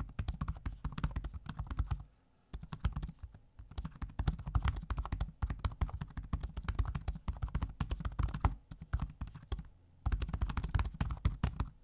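Typing on the keyboard of a 2025 Surface Laptop 13, a fast run of key clicks with a short pause about two seconds in, picked up by a microphone held close to the keys.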